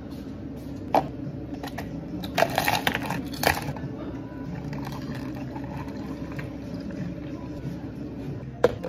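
Bubble-tea counter work over a steady low equipment hum: a sharp knock, then a clatter of cups and ice a couple of seconds in. Milk tea pours from shakers onto ice, and a plastic cup is set down on the counter with a knock near the end.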